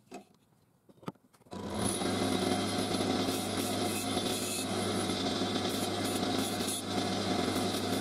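Wood lathe almost silent for about a second and a half, with a couple of small clicks. Then the motor comes back in with a steady hum and a flat turning tool scrapes across the face of a spinning wooden disc, a continuous rough hiss.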